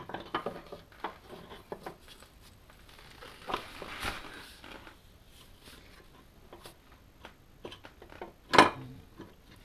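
Hand-work on an engine: scattered light clicks, knocks and scrapes of a gloved hand and small parts, with a brief rustling scrape a few seconds in and one louder knock near the end.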